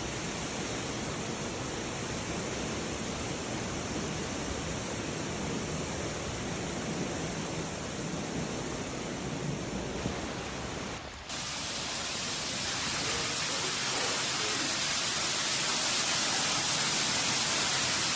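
Floodwater rushing and pouring in a steady hiss, with no rhythm or tones. About eleven seconds in it cuts to a second, louder and brighter rush of water.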